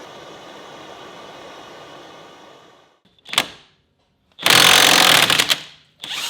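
Impact wrench hammering on a Subaru Impreza front hub nut in three bursts, the middle one the longest and loudest at over a second. Before them, a steady hum fades out about three seconds in.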